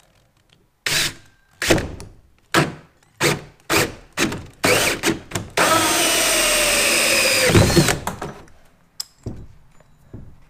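Cordless drill with a 50 mm hole saw cutting into a plastic kayak deck: several short bursts as the cut is started, then a steady run of about two seconds that stops once the saw is through.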